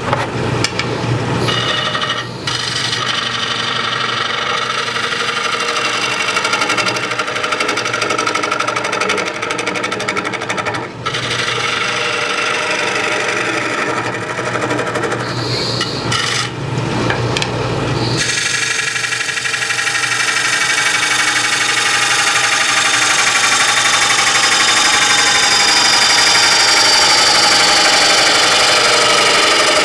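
A bowl gouge making a push cut into a spinning green red oak bowl blank on a wood lathe: a continuous rough shaving sound over the lathe's steady motor hum, broken by brief lifts of the tool a few times.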